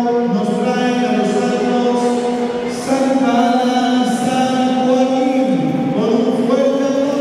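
Slow sung music in the manner of a hymn or chant: a voice holds long notes, stepping from one pitch to the next every second or two.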